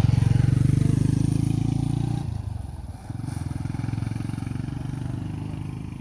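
Small vehicle engine running steadily close by, with a rapid low pulsing. It eases off about two seconds in and picks up again a second later.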